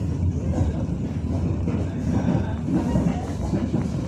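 Passenger train running along the track, a steady low noise of the carriage and wheels on the rails heard from inside the coach.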